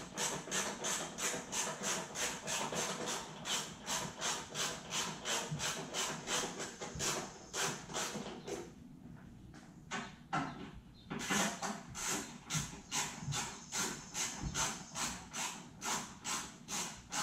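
A hand tool worked in quick rasping strokes, about three a second, with a pause of a couple of seconds a little past the middle.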